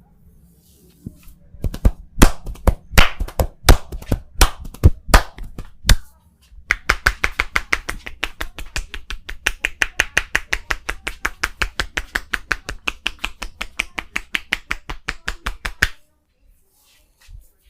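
Hands striking the body in a percussive massage: a few loud, separate slaps about two a second, then a long run of fast, even chopping strikes, about seven a second, that stops suddenly.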